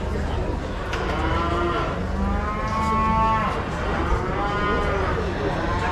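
Aberdeen Angus cattle mooing: two long calls, each rising and then falling in pitch, over a steady low hum.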